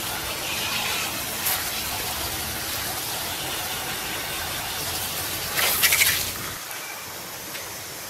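Garden hose spraying water over a window air conditioner to rinse off the cleaner, a steady hiss of spray on the coils and housing. About six seconds in there is a brief louder burst of spatter, after which the spray is a little quieter.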